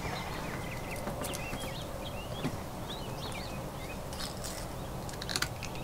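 Small birds chirping in quick, short calls over a steady outdoor background hum, with a few faint clicks near the end.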